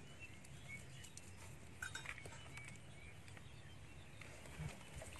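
Faint outdoor background with a few short, high animal chirps and occasional light clicks.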